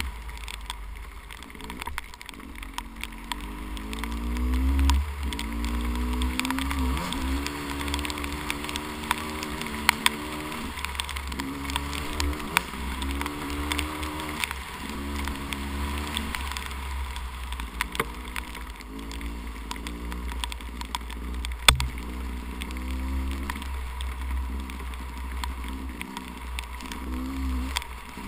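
300cc two-stroke dirt bike engine running under load, its pitch rising and falling again and again as the throttle opens and closes, under heavy wind rumble on the microphone. Scattered sharp ticks, one louder about three quarters of the way through, sound over it.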